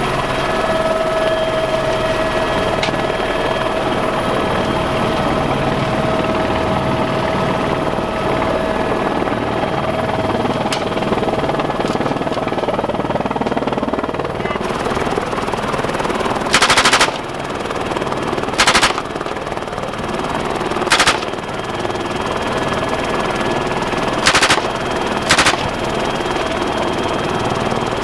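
Helicopter running steadily in flight, with five short bursts of machine-gun fire from aboard it during the second half: two about two seconds apart, one a little later, then two close together about a second apart.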